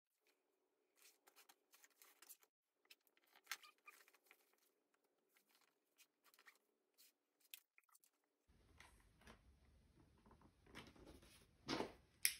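Faint rustling and small clicks of a fabric strap being handled and laid out on a cutting mat. Near the end come a few louder short scrapes and a sharp click, as a rotary cutter is run along a ruler through the strap.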